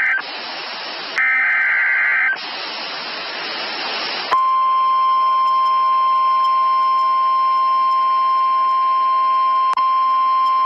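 NOAA Weather Radio emergency alert signal. It opens with the tail of one burst of SAME header data and a second rapid two-pitch data burst about a second in, with radio hiss between them. From about four seconds in comes the long, steady, single-pitch 1050 Hz warning alarm tone that announces a warning about to be read.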